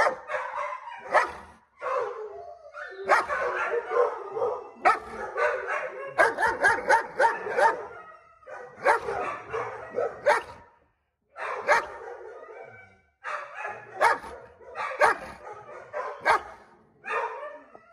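German Shepherd barking from inside a plastic crate in bouts of rapid barks with short pauses between them. The barking is aggressive, aimed at the hand at the crate door.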